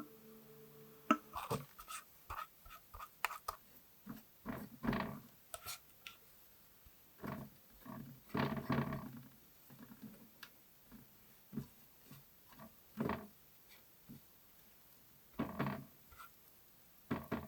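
Hand work on a small die-cast model car: irregular short scraping and rubbing strokes mixed with sharp clicks, the longest strokes lasting about a second.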